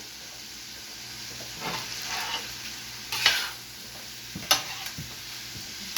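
Ground beef, onions and bell peppers sizzling steadily on a steel flat top griddle, with a few sharp scrapes and clicks of a utensil working the food on the steel, the loudest about three seconds in and another near four and a half seconds.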